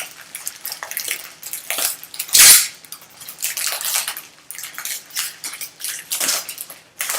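Foil trading-card pack wrapper crinkling and tearing as it is opened, in irregular rustles with a louder rip about two and a half seconds in.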